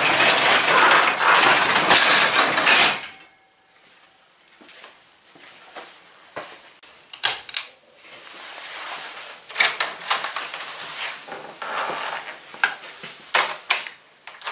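Overhead garage door pulled down by hand, rattling loudly for about three seconds. Then scattered quieter clicks and knocks follow, among them the tug of a shop light's pull-cord switch.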